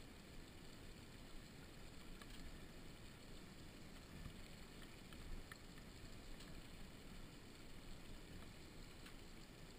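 Near silence: a faint low rumble with a few light clicks, and no engine running.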